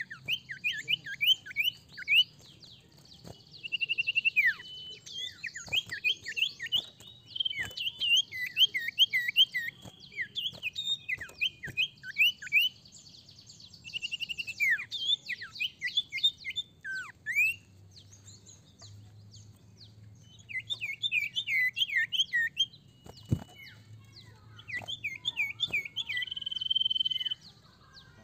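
An iora (sirtu, cipoh) singing: runs of rapid, sharp chirps, each dropping in pitch, lasting one to three seconds with short pauses between, with a few held whistles.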